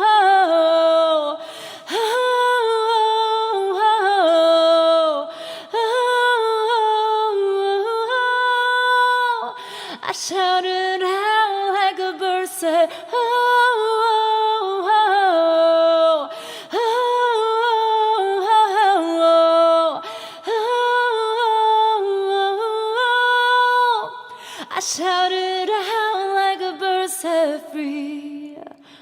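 A woman's voice singing unaccompanied in long held notes and vocal runs, phrase after phrase, with short breaths between them.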